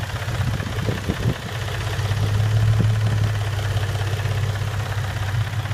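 Nissan 350Z's 3.5-litre VQ35DE rev-up V6 idling steadily, breathing through aftermarket headers and a side exhaust. A few short knocks come between about half a second and a second in, and another near three seconds in: the knocking sound the owner is checking, with oil and oil level reported OK.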